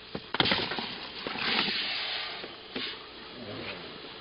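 Handling noise as an old PA amplifier is moved about: a couple of knocks near the start, a rustling scrape about a second and a half in, and another knock near three seconds.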